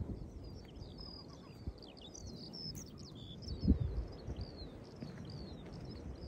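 A songbird singing a continuous stream of quick, high chirps and twitters, over a low rumble of wind; a single thump about three and a half seconds in.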